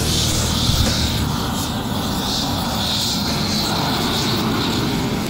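Propane roofing torch burning steadily, heating the underside of a roll of torch-down modified-bitumen membrane as it is laid.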